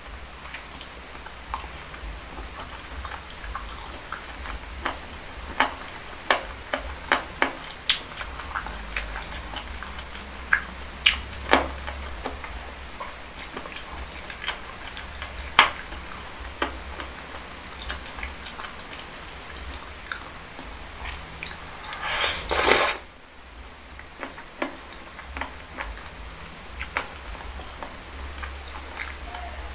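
Close-miked chewing of soft, saucy boneless chicken feet and meatballs: wet mouth smacks and sharp clicks at an uneven pace, with one louder, longer rush of noise lasting about a second roughly two-thirds of the way through.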